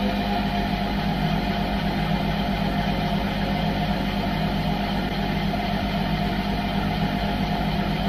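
Washing machine drum spinning at low speed, around 200 rpm, with a steady motor and drum drone heard from inside the drum.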